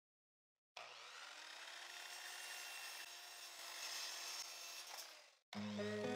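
Faint rubbing and scraping of an old weathered wooden board being handled and slid into place. Louder background music comes in near the end.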